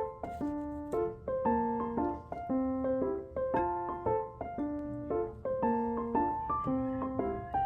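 Background music: a piano playing a gentle melody, its notes struck at an even pace and fading after each strike.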